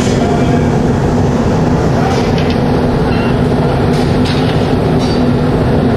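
Gas-fired glass furnace (glory hole) running with a loud, steady drone and low hum, while a glass piece on an iron rod is reheated in its flame. A few short metallic clinks sound over it.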